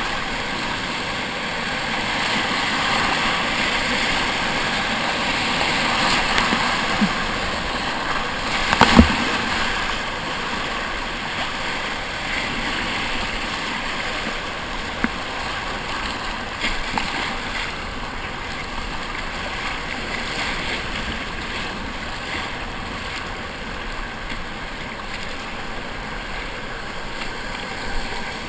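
Rushing, splashing whitewater of a rapid heard from the kayak's deck, with paddle blades dipping into the water. One sharp hit about nine seconds in is the loudest moment.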